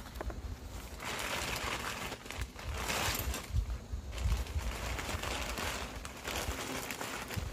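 Crinkling and rustling of a large plastic bag among leafy branches, in irregular noisy spells about a second long.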